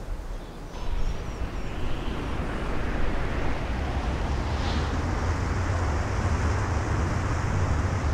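FPV drone in flight, with wind rushing and a steady low rumble; a high hiss joins about halfway through.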